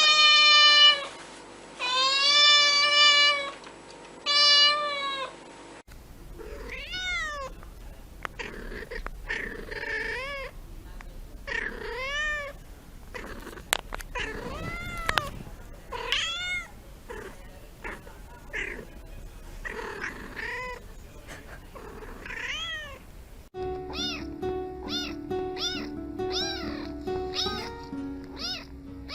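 Domestic cats meowing over and over: a few long, loud meows at first, then many short mews rising and falling in pitch, and near the end meowing over background music with a repeating melody.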